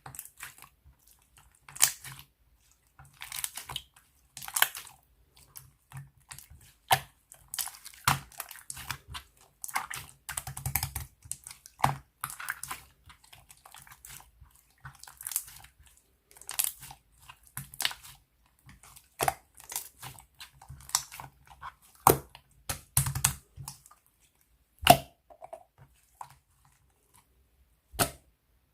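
Hands squishing, pressing and stretching clear glitter slime, making irregular sticky clicks, crackles and air-bubble pops, with a few sharper pops standing out and short quiet pauses between handlings.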